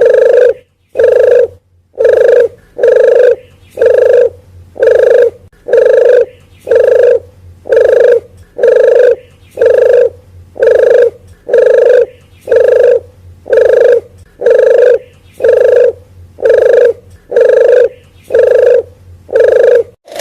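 Dove lure call (puter geni): a loud, short cooing note repeated evenly about once a second.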